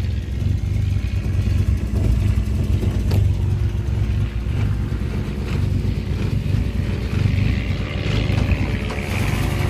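Ford Escort Mk2's turbocharged, forged-internals engine idling unevenly: a lumpy idle while running very rich, which the owner says sounds like a performance cam. A single sharp click about three seconds in.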